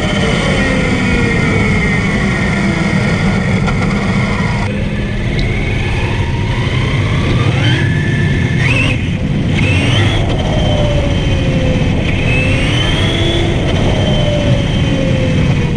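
Electric motor and gearbox of a 3D-printed 1:8 scale RC Supra whining as the car drives. The whine falls, rises in steps as it speeds up, then falls again as it slows, over a steady rumble of tyres on asphalt.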